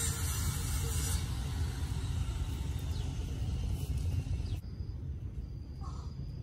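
A steady low rumble with a hiss above it. About four and a half seconds in, the sound drops and changes abruptly.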